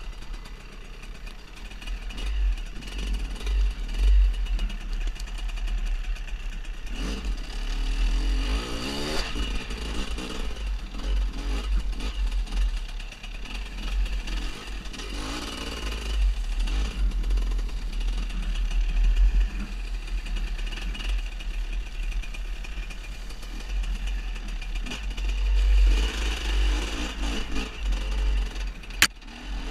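GasGas 300 enduro motorcycle ridden off-road, its engine revving up and down with the throttle, with a sharp click near the end.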